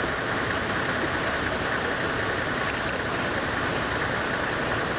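Heritage ex-CFL diesel locomotive running steadily as it slowly approaches pulling a train, with faint paired ticks about every three seconds.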